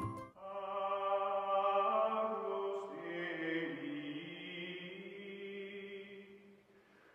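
Outro music of long held notes over a low sustained note, starting after a brief gap and fading out near the end.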